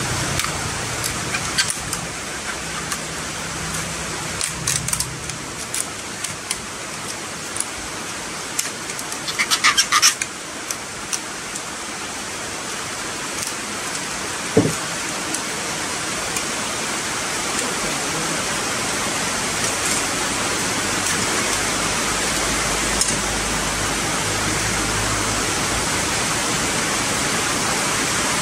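Heavy rain pouring steadily. About ten seconds in there is a quick run of small clicks, and a few seconds later a single knock.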